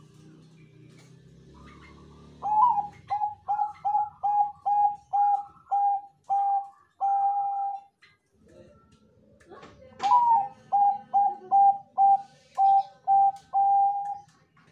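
Zebra dove (Bangkok perkutut) singing its cooing song: two phrases, each a run of about a dozen short, clipped coos that opens on a slightly higher note and ends on a longer held coo.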